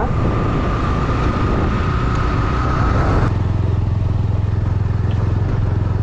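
Motorcycle engine running under way. A thin steady high-pitched whine rides over it for about the first three seconds and then cuts off suddenly, after which the engine note runs more evenly.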